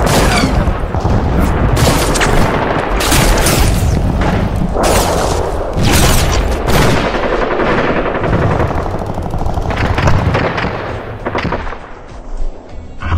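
Rapid automatic rifle fire at close range: long runs of shots in quick bursts, one after another, thinning out and dropping in level near the end.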